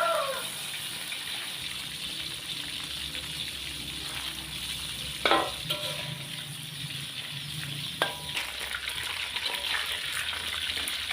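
Pieces of spice-simmered free-range chicken sizzling steadily as they fry in hot oil. Two sharp clinks, each with a short ring, come about five and eight seconds in.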